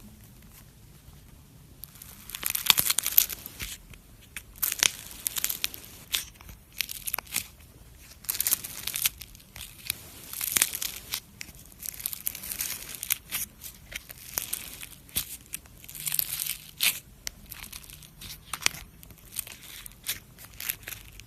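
Slime being worked by hand, with irregular crackling and crinkling noises starting about two seconds in.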